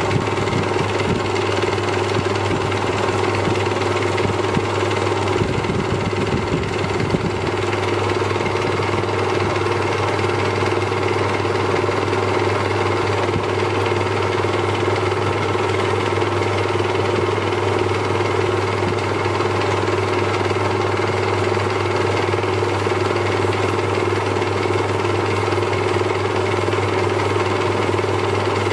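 Pen maker's lathe running with a steady, constant hum while an ebonite pen part is worked in its chuck. A few low knocks come about six seconds in.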